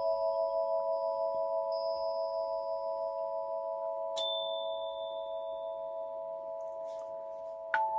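Meditation music of steady, held bell-like tones that waver slowly in loudness, with a bright chime struck about four seconds in that rings away, and another struck note near the end.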